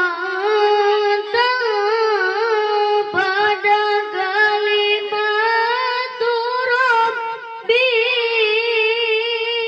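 A young boy reciting the Quran in the melodic tilawah style with a high voice, holding long, ornamented notes that waver and turn. There are a few short breaks for breath.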